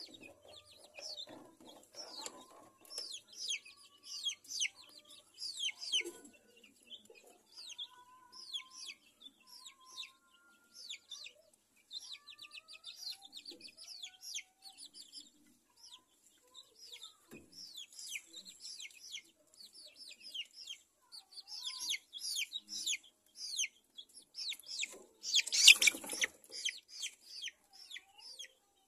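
Young chickens and a duckling peeping: a constant stream of short, high, downward-falling chirps. A brief loud flurry breaks through near the end.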